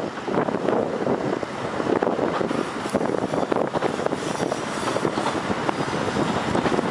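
A train running at speed, heard from an open window: a steady rush of wind buffeting the microphone over the train's running noise.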